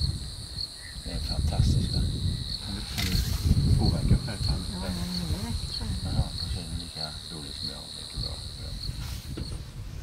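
An insect, a cicada or cricket, droning in a steady shrill note that pulses about twice a second and stops shortly before the end. An uneven low rumble runs underneath.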